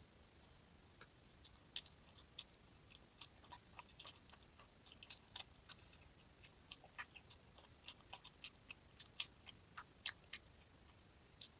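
Eating sounds: a string of short, sharp, irregular clicks and small crunches, sparse at first and coming thicker about three seconds in.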